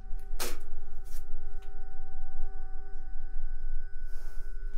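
A sustained drone of several steady held tones over a low rumble, like a film-score pad, with a few soft clicks.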